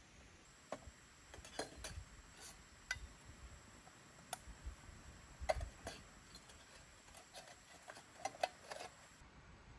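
Faint, irregular light clicks and taps, about a dozen scattered over several seconds, with quiet in between.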